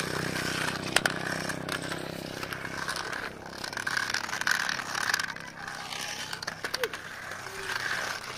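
Toy RC stunt car's small electric motors whining as it spins and flips on concrete, with its wheels scraping and its plastic body knocking on the ground several times, about a second in and again near the end.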